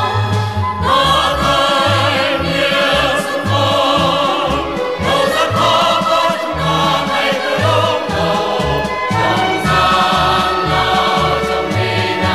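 Music: a mixed male and female choir singing over instrumental accompaniment with a steady, repeating bass line.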